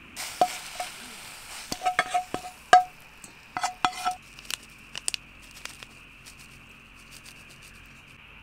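Utensils clinking against dishes: a string of sharp, ringing clinks over about four seconds, starting just after a brief rush of noise and thinning to a few faint taps.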